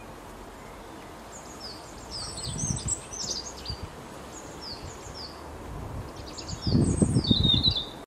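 Small songbirds chirping: short, high, downward-sliding chirps, scattered through the middle and coming thicker near the end. A low rumble rises under them briefly about two and a half seconds in, and again near the end, where it is the loudest sound.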